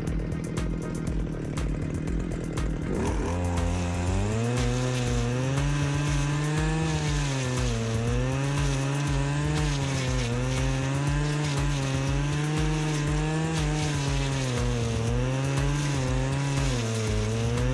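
Stihl petrol brush cutter running with a steady note, then opened up to full throttle about three seconds in. Its engine pitch dips and recovers every second or two as the brush knife sweeps through thick, matted grass.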